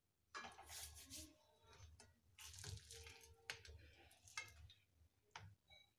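Faint soft handling sounds with a few light taps: hands pinching off and pressing sticky black sesame and jaggery laddu mixture on a plate.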